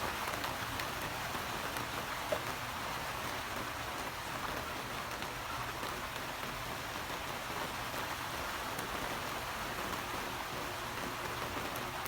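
Steady rain falling, with one short tick about two seconds in.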